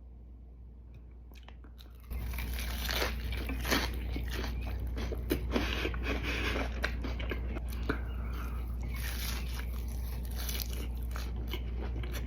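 Crunchy biting and chewing of a burrito with Flamin' Hot Cheetos inside, a dense run of crackling crunches starting about two seconds in after a quiet start.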